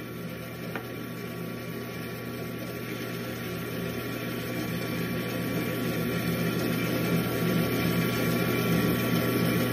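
Bandsaw running with its blade turning freely, not yet cutting, a steady motor hum that grows slowly louder. A faint click a little under a second in.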